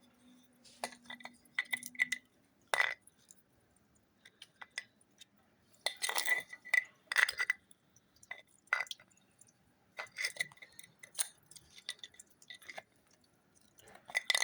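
Irregular clicks and clinks, several ringing briefly, with dripping water, as a washing machine's drain pump filter is handled and cleared of hair and debris.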